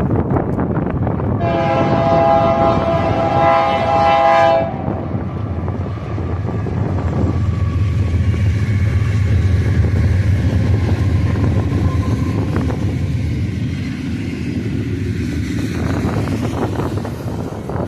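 Diesel freight locomotive horn sounding one long blast of about three seconds, over the steady rumble of the train. After the blast, the low rumble of the diesel locomotives grows stronger for several seconds.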